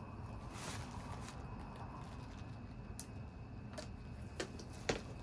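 A hand tool prying up a thin metal piece of an LCD backlight housing: a brief scrape about half a second in, then a few sharp light clicks, the loudest near the end.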